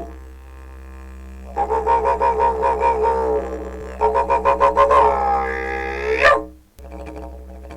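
Background music: a steady low drone under pulsing pitched notes, with a sweeping glide that breaks off sharply about six and a half seconds in before the music picks up again.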